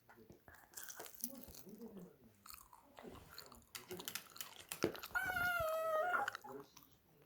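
Crunchy chewing and biting, heard as a run of small irregular clicks. About five seconds in, a puppy gives one drawn-out, high, slightly wavering whine lasting about a second, begging for the chicken.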